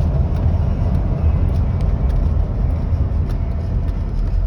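Steady road and engine rumble heard from inside a moving vehicle's cabin.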